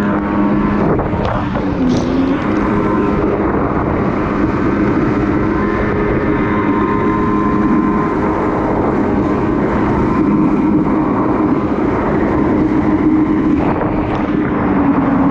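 Jet ski engine running at steady cruising throttle, with the rush of water and wind over the hull. The engine note dips briefly about two seconds in, then holds steady.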